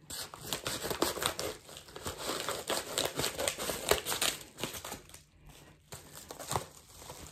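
Scissors cutting through a kraft paper mailer envelope, with crackly snips and the crinkling of the paper as it is cut and handled; the crinkling eases off briefly about five seconds in.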